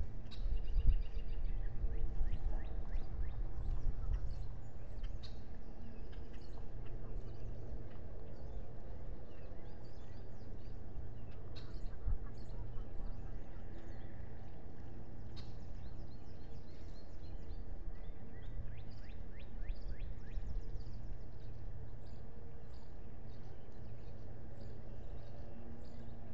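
Wind rumbling on an outdoor nest-camera microphone, stronger in the first few seconds and then steady, with small birds chirping and twittering throughout.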